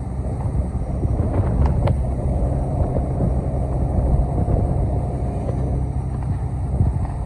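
Isuzu diesel engine of a Hitachi ZX870LCH-3 high-reach demolition excavator running with a steady low rumble, building slightly about half a second in.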